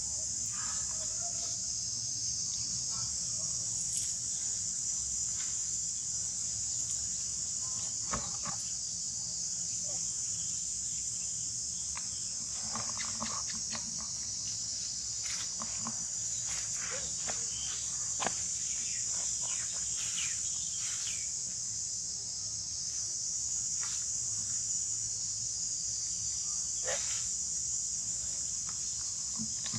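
A steady, high-pitched chorus of insects drones without a break. Scattered brief chirps and clicks come and go over it.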